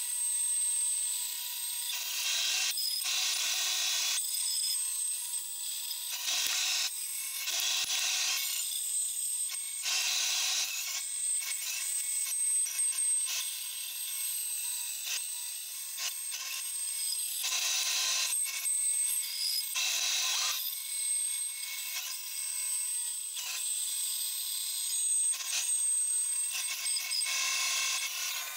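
Bandsaw running and cutting plywood along a curved line, the cutting noise swelling in repeated louder stretches as the blade is fed through the wood.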